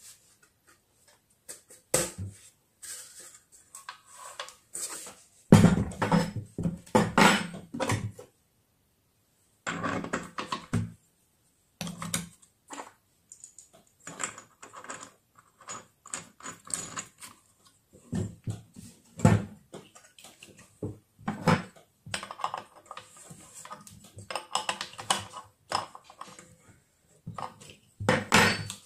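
Irregular clatter, clinks and knocks of a stainless-steel saucepan, a steel grinding blade and spanners being handled and set down on a wooden table, coming in uneven bursts.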